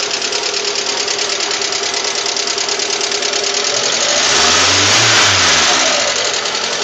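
Lada Priora's VAZ-21126 1.6-litre 16-valve four-cylinder engine running with a rapid, even knock, which the owner says sounds like either the hydraulic lifters or the new 82.5 mm pistons. About four seconds in the engine is revved briefly, and the revs fall back by about six seconds.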